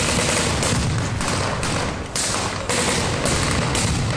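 Rapid blank gunfire, about three shots a second, each shot followed by a short ringing echo.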